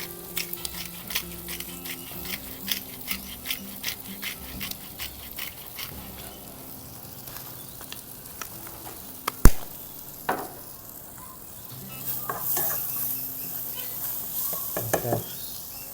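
Onion and garlic frying with turmeric in olive oil in a pot, sizzling while being stirred. There is a run of light clicks through the first half and one sharp knock about halfway through.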